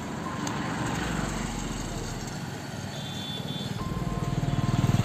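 Background music mixed with street traffic noise, with a pulsing low engine rumble that grows louder near the end.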